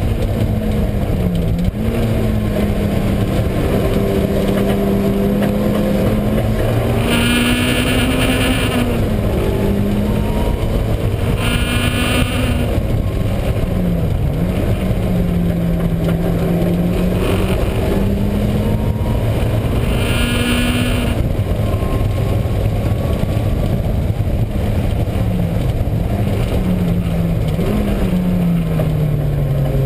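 Mazda Miata engine running at track pace, its pitch climbing and dropping through gear changes and braking. Three times a higher whining noise comes in for a second or two. The owner puts this noise down to a failing wheel bearing, heard mainly under engine braking.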